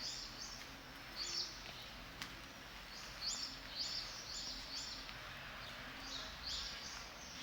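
A small bird chirping repeatedly in short, high calls, about one a second, over steady outdoor street ambience.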